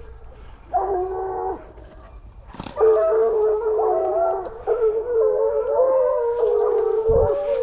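A pack of hunting hounds baying on wild boar, several voices overlapping: a short burst about a second in, then steady overlapping howling from about three seconds in.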